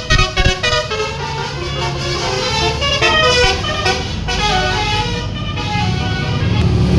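Bus 'telolet' multi-tone horn (basuri type) playing a quick tune of stepped notes, with the bus engine and road rumble underneath. A few thumps come right at the start.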